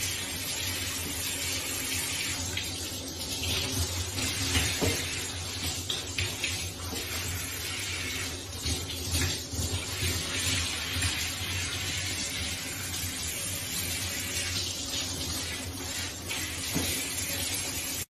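Handheld shower head spraying water steadily onto a wet cat in a bathtub.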